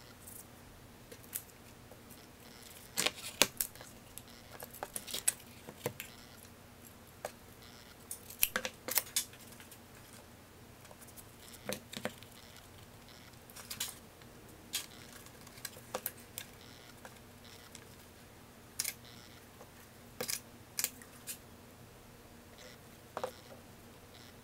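Scattered light clicks and taps, some in quick clusters, from a sewn book block with thin wooden boards being handled and set down on a workbench.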